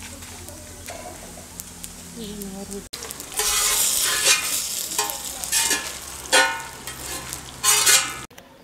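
Metal spatula scraping and stirring red chillies and coriander seeds roasting on a large iron tawa, with the dry seeds rattling. From about three seconds in the scraping grows louder and choppier as the spices are swept across the pan, stopping abruptly near the end.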